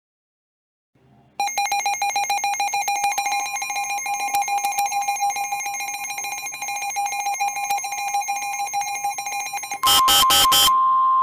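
Emergency Alert System alert tones: after about a second of silence, a loud steady two-pitch alert tone with rapid clicking through it. Near the end come four short, loud data bursts, then a single steady tone.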